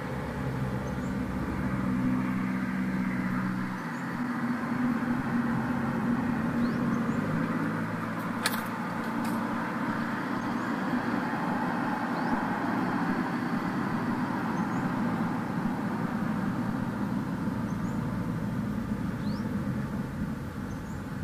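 Road traffic with a vehicle engine running steadily, its hum strongest for the first four seconds and again around eight seconds, over a continuous wash of road noise. A single sharp click comes about eight and a half seconds in.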